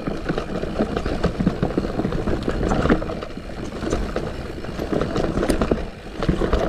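Santa Cruz Heckler mountain bike riding down a dirt trail: a steady rumble of tyres over the ground with many sharp rattles and knocks from the bike over bumps, roots and ruts.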